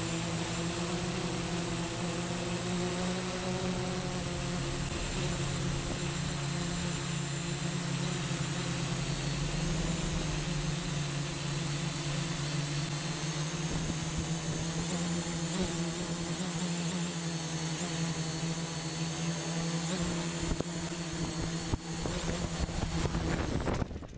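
Eight brushless motors and 10-inch propellers of a 3D-printed octocopter buzzing steadily in flight, heard from its onboard camera, with a thin high whine above the hum. Near the end the craft is down on the stones and the motors stop, the buzz cutting off suddenly.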